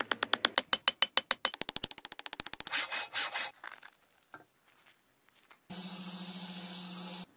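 Fast sharp metallic taps ringing at about ten a second for roughly three seconds, as the fresh bronze axe casting is knocked out of its sand mould. After a short pause, a belt grinder runs steadily, hissing with a low hum, as it grinds the bronze axe head, and it cuts off abruptly near the end.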